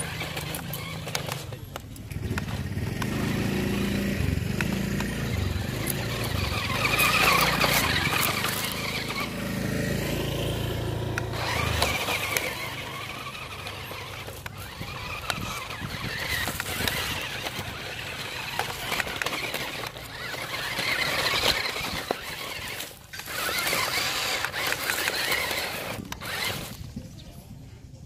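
Toy RC rock crawler's electric drive motor and gearbox whining, swelling and dipping as the throttle comes and goes, while its tyres grind and scrabble over loose broken brick and concrete rubble with scattered clicks of knocked stones.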